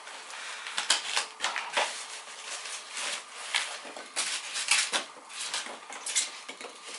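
Packaging being handled and pulled open while a guitar is unpacked: irregular rustling, scraping and sharp clicks.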